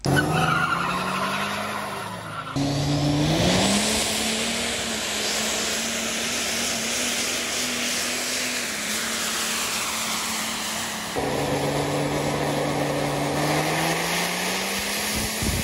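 Cummins turbo-diesel Ram pickup engine running hard at full throttle under load, in three cut-together runs. The engine pitch climbs after the first cut and again steadily through the last run.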